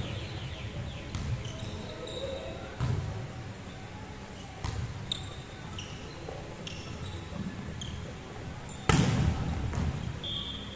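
Volleyball rally in a large gym: hands and arms striking the ball with sharp smacks that echo in the hall, and sneakers squeaking briefly on the wooden court. The loudest hit comes about nine seconds in.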